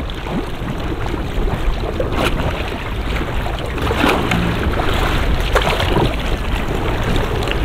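Wind buffeting the microphone over water lapping around a kayak, with a few short splashes.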